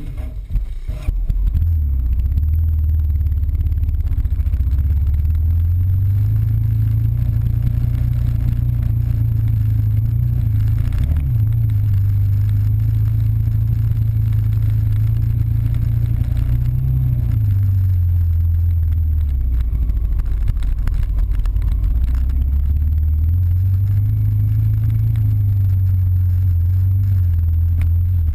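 Dirt bike engine heard from on the moving bike: it pulls away about a second in, then keeps running at speed, its note rising and falling in long swells as the throttle changes over the rough trail.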